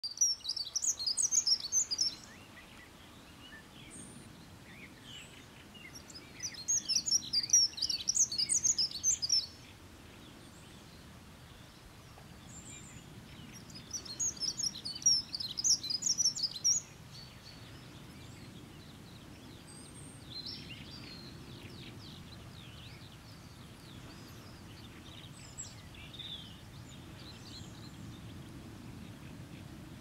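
Dunnock singing: three bursts of fast, high-pitched warbling song, each two to three seconds long, a few seconds apart, with fainter scattered bird calls in the last third.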